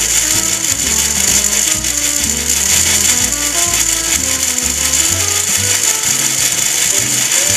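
Small electric motor driving a worm-gear reducer, with a steady high mechanical whirring rattle as it winds the string cables that lower a model drawbridge's two leaves. Background music with changing notes and a stepping bass line plays alongside.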